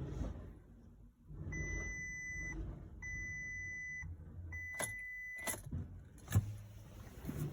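Warning beeps from a VW Touran that will not start: three steady high-pitched beeps of about a second each, followed by a few sharp clicks near the end, over a low hum.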